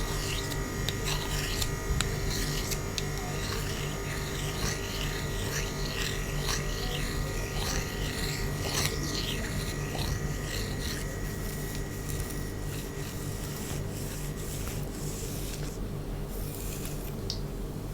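Hair being combed close to the microphone: repeated rasping strokes through the hair, about one a second, growing fainter in the last third.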